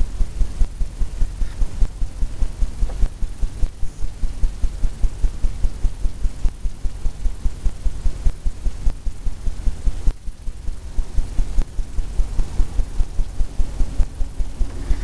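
Paintbrush dabbing oil paint onto a stretched canvas on an easel, giving dull low thumps about four a second, with a short break about ten seconds in.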